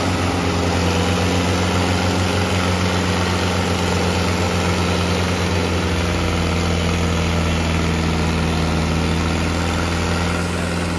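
Mahindra Arjun Ultra-1 555 DI tractor's diesel engine running hard and steady under heavy load in a tractor tug-of-war pull against another tractor coupled to it, with a deeper note coming in about halfway through.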